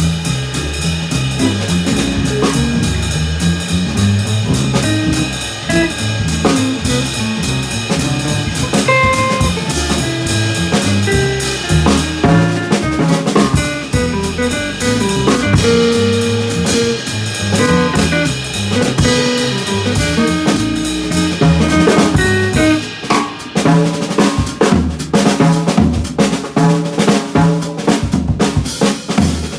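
A band playing without vocals: a drum kit with snare and bass drum drives it over a moving bass line and guitar. The drumming gets busier about two thirds of the way through.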